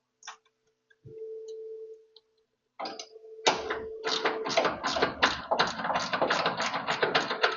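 A fast, even run of sharp mechanical clicks or taps, about four a second, starting about three seconds in, over a steady hum.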